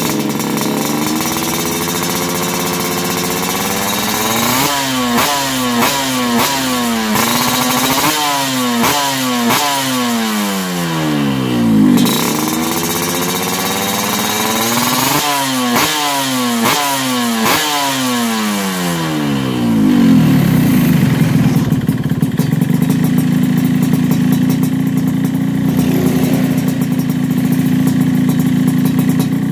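Yamaha RX-King two-stroke single-cylinder engine running through a Creampie stainless steel racing exhaust, stationary. It is revved in a series of throttle blips, pitch rising and falling, then settles into a steady idle about twenty seconds in.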